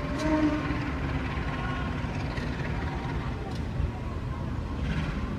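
Steady low rumble of a CC 203 diesel-electric locomotive approaching the station, with a brief faint tone just after the start.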